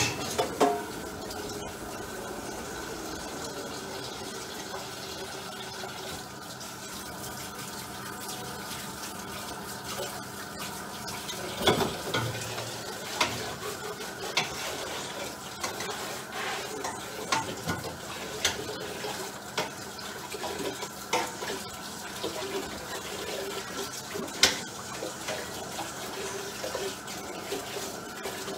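Water running from a kitchen tap into the sink, with dishes and pans clinking now and then as they are washed.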